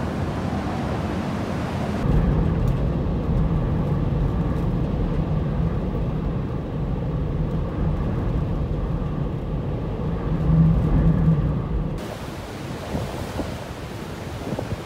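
Hurricane-force wind gusting across the microphone. From about two seconds in until near the end the sound turns muffled and lower, with a steady low hum from an idling vehicle engine under the wind, before the open wind noise returns.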